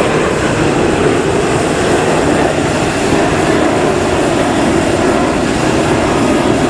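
Loud, steady roar of a jet airliner's engines passing overhead.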